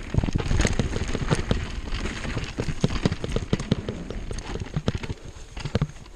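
Mountain bike descending a rough dirt trail: tyres rolling over dirt and roots, with a constant rattle and irregular sharp knocks from the bike as it bounces over bumps.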